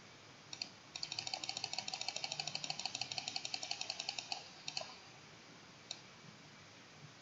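Rapid run of computer mouse clicks, about ten a second for some three seconds, from repeatedly clicking PowerPoint's increase-font-size button, followed by a few single clicks.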